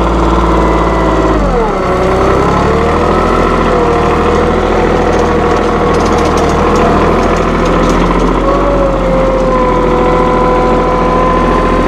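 1998 New Holland Boomer 1925 compact tractor's diesel engine running steadily, with a whine above it. The pitch dips about a second and a half in, then holds.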